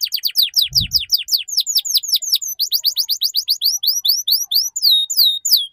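Canary singing a fast ngeriwik-style trill of rapidly repeated down-sweeping notes, about ten a second, that slows towards the end and stops abruptly. There is a brief low thump about a second in.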